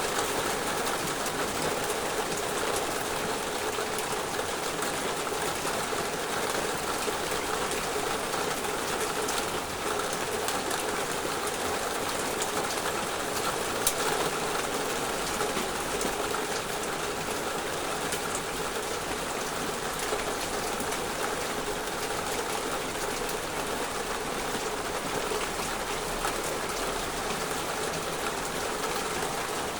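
Heavy downpour of rain: a dense, steady hiss of rain falling on surfaces, with a few sharper drop impacts now and then.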